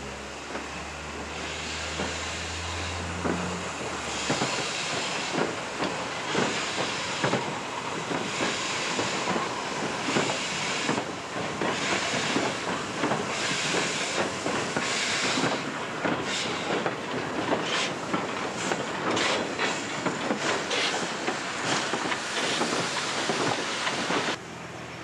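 Ty3-2 steam locomotive working slowly past with a train of open freight wagons: the wagon wheels click and clack over the rail joints while the engine's steam exhaust beats in a hissing chuff about once every second or so. The clicking and knocking grow denser in the second half, and the sound cuts off suddenly near the end.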